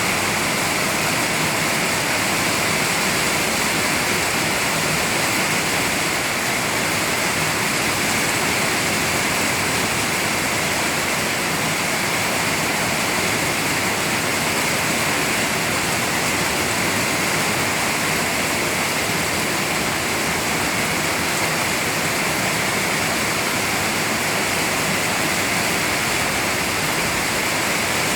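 Heavy rain pouring down: a steady, even rush of water noise with no let-up and no thunderclaps.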